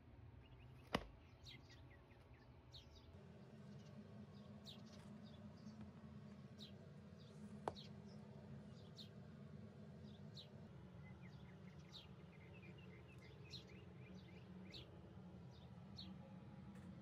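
Near silence: a low steady room hum with faint small-bird chirps and short chirp runs in the background, and two sharp clicks, a louder one about a second in and a softer one near eight seconds.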